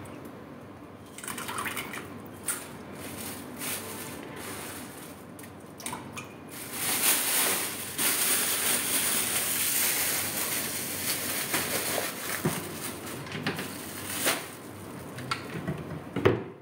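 Tap water running for about eight seconds, starting about six seconds in, after some light knocks of handling. A sharper knock comes near the end.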